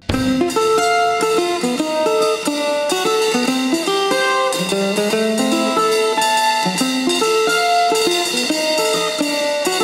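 Background instrumental music: a busy melody of short, stepping notes.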